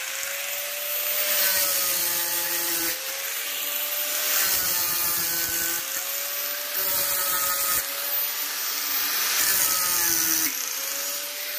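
A machine's motor running steadily, with a hum that swells and dips every couple of seconds and a low rumble that cuts in and out.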